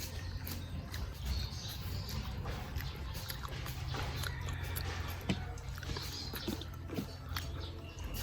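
Close-up chewing and crunching of crispy deep-fried pork belly (lechon kawali), with irregular sharp crackles of the crackling skin between bites.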